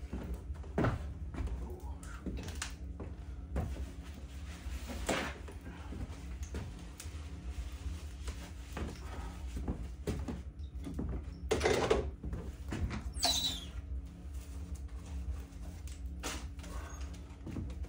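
Scattered knocks and clunks, the loudest a short clatter about twelve seconds in, over a steady low hum.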